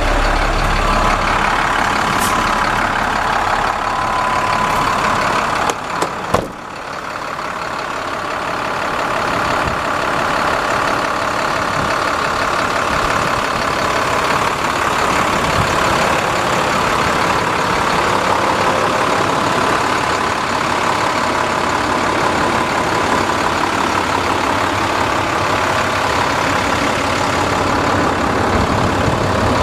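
Diesel engine of a 2008 International 7400 plow truck idling steadily, with a couple of sharp knocks about six seconds in.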